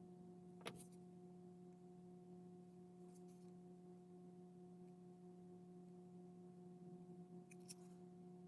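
Near silence: a faint steady electrical hum, with a light click about a second in and faint ticks near the end.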